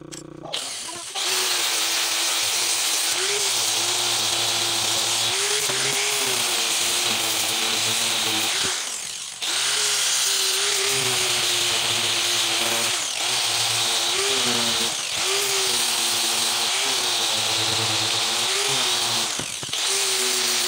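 Electric angle grinder with a sanding pad running against the steel blade of a bill hook. The motor's pitch sags and recovers as the pad is pressed on and eased off. It spins up about a second in and stops briefly about nine seconds in.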